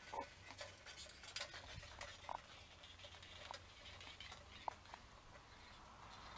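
Faint, scattered light clicks and taps of a steel measuring tape being fed into an aluminium stair-lift rail, with a few short high chirps in between.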